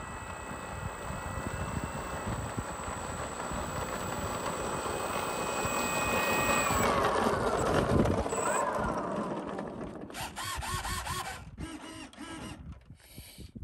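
Electric motor and propeller of a 3D-printed WACO biplane RC model whining as it taxis on asphalt, growing louder as it comes closer. About seven seconds in, the whine falls in pitch as the motor winds down, and the sound grows quieter.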